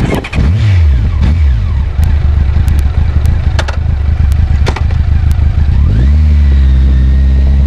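Motorcycle engine running close to the exhaust, revving in short rising sweeps with several sharp clicks. About six seconds in, the revs rise and hold at a steady, higher engine note.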